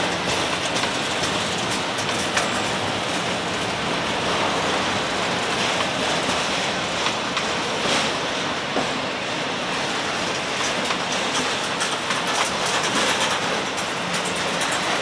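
A train rolling past, with a steady rumble and the repeated clicking of its wheels over the rails.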